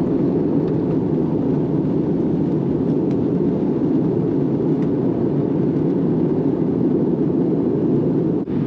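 Steady airliner cabin noise in flight, an even rushing of airflow and engine sound inside an Airbus A321's cabin, with a very brief dip near the end.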